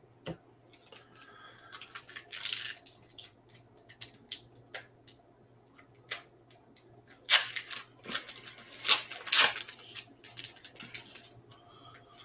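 Foil trading-card pack wrapper being torn open and crinkled: a string of crackling rustles, loudest about seven to nine and a half seconds in, with light handling clicks between.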